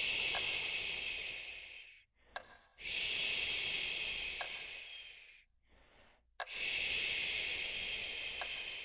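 A person shushing softly and soothingly, three drawn-out "shh" sounds, each starting sharply and fading away over about two and a half seconds. Faint clicks come about every two seconds.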